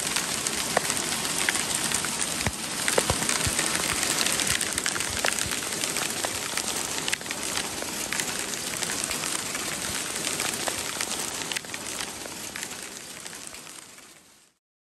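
Hailstones pelting down onto wooden boards: a dense, steady patter with many sharp individual ticks. It fades out near the end.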